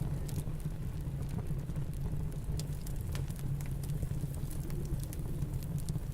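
Fireplace crackling, with scattered sharp pops and snaps, over the steady low rumble of a snowstorm.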